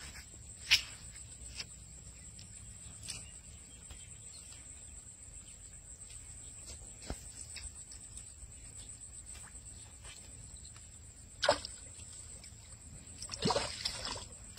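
Soft splashes and rustles of a frog lure being twitched across a mat of swamp weeds and into open water, a few sharp single splashes and a louder cluster near the end, over a steady high-pitched insect drone.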